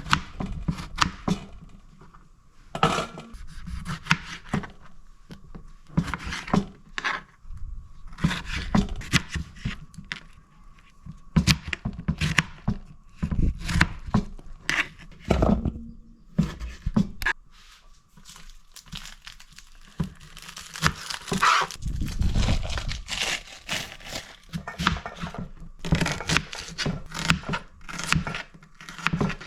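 Crinkling and tearing of packaging, with irregular short rustles and scattered knocks and thuds, over a faint steady hum.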